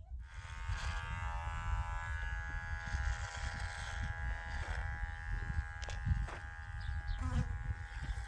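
A small motor starts and runs with a steady buzz over a low rumble, with a few knocks about six and seven seconds in.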